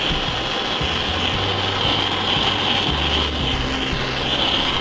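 Background music with sustained tones and a low bass line that steps to new notes every second or two.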